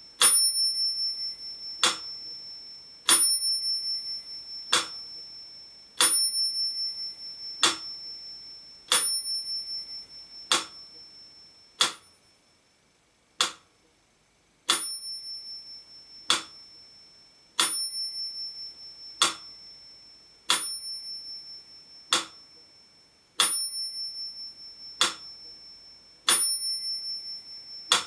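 Mechanical pyramid metronome ticking slowly at 40 beats a minute, about one tick every second and a half, with its bell ringing on every second beat and the ring lingering between ticks.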